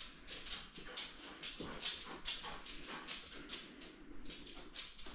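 Dog sniffing hard while scenting out hidden treats: a quick, irregular run of short snuffs, several a second, with a louder one near the end.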